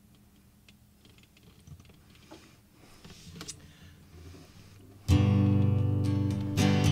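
A few faint clicks and knocks, then about five seconds in two guitars start playing together suddenly, strummed chords ringing out.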